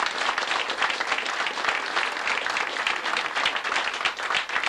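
A crowd applauding: many hands clapping steadily.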